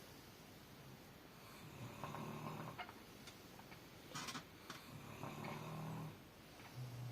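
Snoring: low snores about every three seconds, each lasting about a second, with a short hissing breath about four seconds in.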